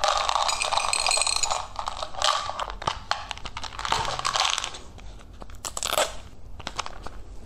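Hollow plastic dice-shaped candy containers being twisted and pried open by hand: crinkly plastic scraping and creaking, loudest in the first couple of seconds, then scattered clicks and clatter as small candies are tipped out onto a plate, with a sharp snap near the end as another die's lid is worked open.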